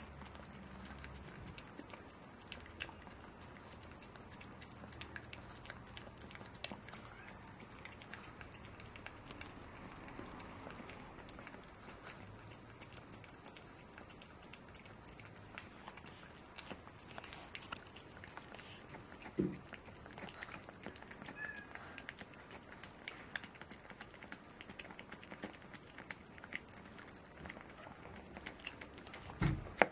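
A chihuahua licking and lapping a soft jelly dog cake, a steady run of small wet clicks. A cat meows a couple of times from behind a closed door, about two-thirds of the way in and near the end.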